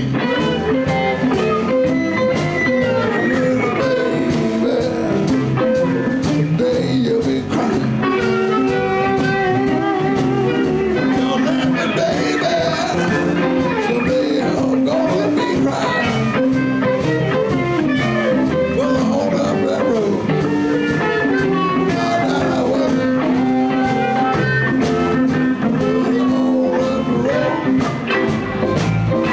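Live blues band playing an instrumental passage: guitar over bass and drums keeping a steady beat.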